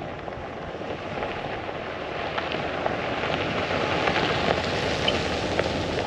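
Ford F-250 Tremor pickup rolling along a dirt road: a steady rushing road noise with scattered small crackles of gravel under the tyres, slowly growing louder.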